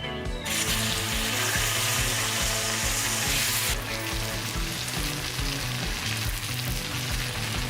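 Stinky tofu deep-frying in hot oil, a dense sizzle that starts about half a second in and turns a little softer after about three more seconds. Background music plays underneath.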